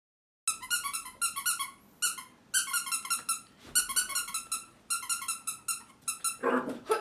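Quick bursts of short, high-pitched squeaks in rapid groups, from a squeaky dog toy being chewed by a puppy. Near the end there is a brief lower, rougher sound.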